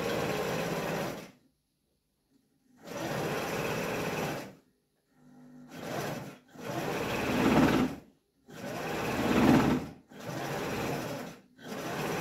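Electric sewing machine stitching through a gauze-covered wool pad, running in repeated runs of one to two seconds with short pauses between them.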